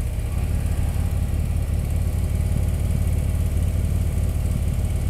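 Motorcycle engine running with a low, steady note while riding along a mountain road, picked up on the bike itself.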